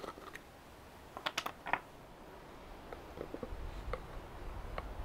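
Small clicks and taps of a spice jar, its plastic lid and a measuring spoon being handled while garlic powder is spooned into a bowl. A quick cluster of clicks comes about a second and a half in, then scattered soft ticks, with a low rumble coming in past the middle.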